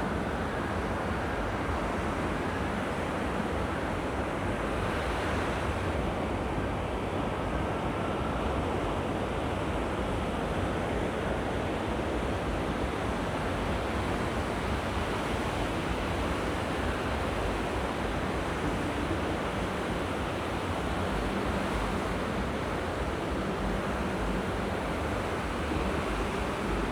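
Sea surf washing onto the beach in a steady, even rush with no single wave standing out, with some wind on the microphone.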